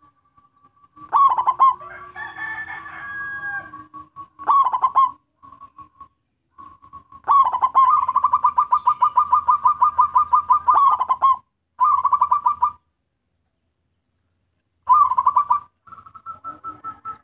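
Zebra dove (perkutut) singing its cooing song: phrases of rapid staccato coos on a steady pitch, separated by short pauses. The longest phrase is a quick pulsed run of about four seconds in the middle. The song is used as a lure to call in other zebra doves.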